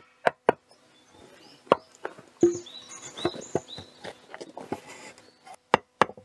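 Hammer striking timber to drive tight-fitting mortise-and-tenon joints of a small wooden post-and-beam frame home. Two quick blows at the start and one about two seconds in, then softer knocks and shuffling of wood as a beam is set in place, and a quick run of three blows near the end. Birds chirp in the background.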